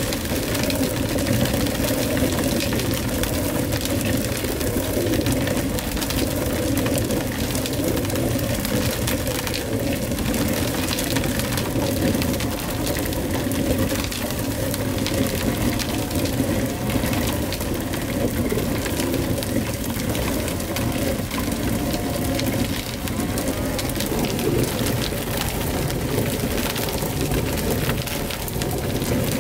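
Hand-turned stone quern grinding grain: a steady gritty scraping of the upper millstone turning on the lower one.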